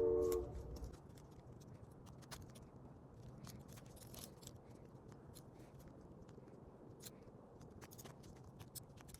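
A steady tone cuts off about half a second in, followed by faint handling noise: scattered light clicks and rubbing as a rubber band is fitted onto the arms of a folding slingshot attachment.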